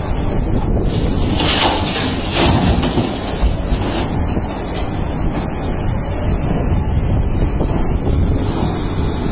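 Kobelco SK380HD excavator's diesel engine running steadily under load, with a rushing rattle of rock and gravel pouring from its bucket into a steel dump truck bed about one to two and a half seconds in.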